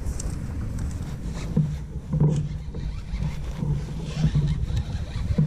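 Wind rumbling on the microphone and water noise around a kayak on open water, with a few short low swells.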